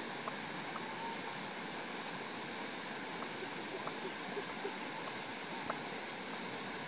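A steady, even hiss of outdoor background noise, with a few faint, very short chirps or ticks scattered through it.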